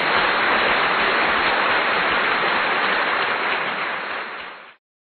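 A steady, even rush of noise, like rain or a crowd applauding, that cuts off abruptly just before the end.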